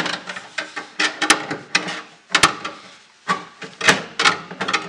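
A loose piece of sheet steel rattling and knocking against the inside of a pickup's sheet-metal fender as it is hauled up on a wire. It comes as irregular clusters of sharp metallic clicks and knocks with some scraping between them.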